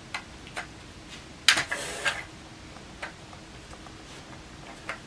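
Plastic SPOT dog treat puzzle clicking and clacking as a saluki noses and shifts its caps: a few scattered clicks, with the loudest short clatter about a second and a half in.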